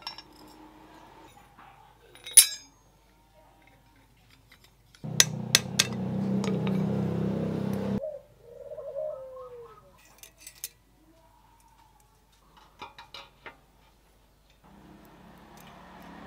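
Steel bicycle crank and chainring parts clinking as they are handled and fitted into the frame's bottom bracket: one sharp clink about two seconds in, a cluster of clicks around the middle and a few more later. A steady low hum runs for about three seconds midway and comes back faintly near the end, with a short gliding tone just after the first hum.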